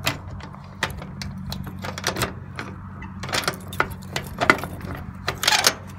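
Keys and a slightly rusty laminated steel padlock clicking and clinking against a metal door hasp as the lock is worked open and pulled off, with the loudest metallic clinks in the second half.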